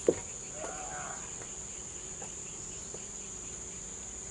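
Steady high-pitched buzzing of insects, with one sharp knock at the very start, a footstep on a wooden raft plank.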